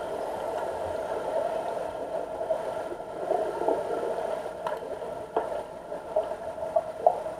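Steady mechanical hum heard underwater in a deep diving pool, with a few short sharp clicks in the second half.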